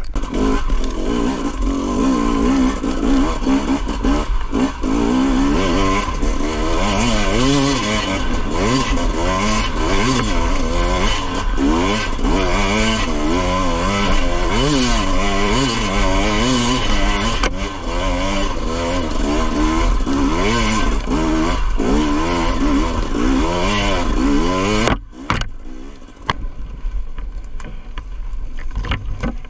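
2016 KTM EXC 250 two-stroke enduro engine being ridden, revving up and falling back over and over, its pitch rising and dropping every second or so. About 25 seconds in the throttle shuts suddenly and the engine drops to a much quieter, low run.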